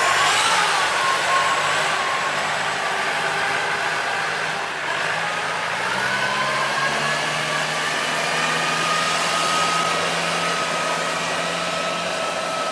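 Boat engines running steadily close by, with a low engine hum setting in about halfway through as a sand-laden barge passes.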